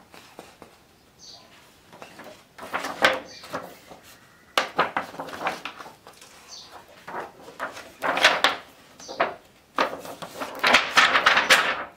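Stiff, thick pages of a wedding photo album being turned by hand: rustling, sliding and soft knocks in about four separate bursts as each heavy sheet is lifted and laid flat.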